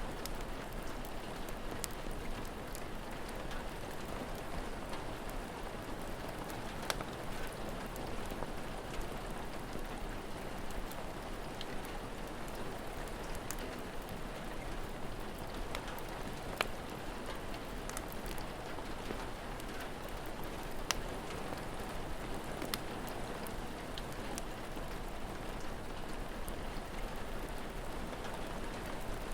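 Steady rain falling, with occasional sharp crackles and pops from a wood fire.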